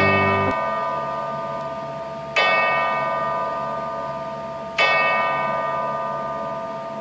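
A large hanging bell struck three times, about two and a half seconds apart. Each stroke rings out and slowly dies away.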